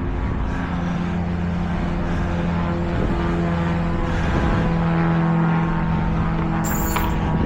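Tow truck engine running steadily, a constant hum with low rumble beneath it, and a brief high hiss about seven seconds in.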